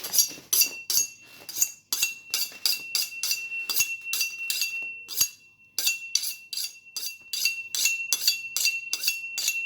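Kitchen knife being sharpened, its steel blade drawn again and again against a metal sharpening steel. The strokes come about three to four a second, with a short pause partway through, and carry a high metallic ring.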